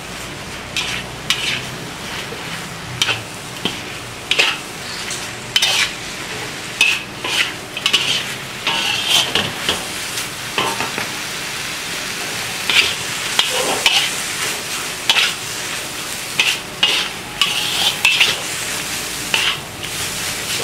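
Metal spatula scraping and turning shredded chicken in a hot wok, over a steady sizzle of frying. The scrapes come irregularly, about once a second, as the spiced chicken is stir-fried until its liquid has cooked off.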